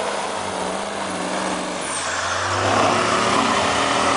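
Lifted pickup truck's engine revving as the truck ploughs on big tyres through deep, slushy snow. It gets louder about two and a half seconds in as the truck comes past.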